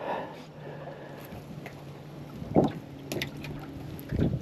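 Wet nylon cast net being lowered and shaken out onto the deck of an aluminium boat after a throw, with water running off it and a few short knocks and rustles about 2.5 and 3 seconds in. A faint steady low hum sits under it.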